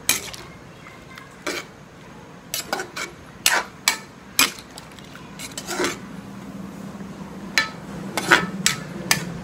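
Metal ladle knocking and scraping against a large aluminium wok while stirring a soupy stew: about fifteen irregular clanks.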